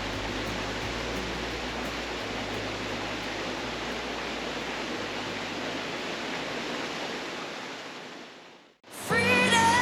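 Cascading creek waterfall rushing in a steady wash of water noise, which fades out about a second before the end. Music starts just before the end.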